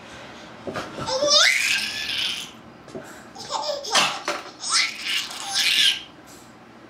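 A baby laughing and squealing: a long high squeal that rises in pitch about a second in, then several shorter bursts of laughter, stopping about six seconds in.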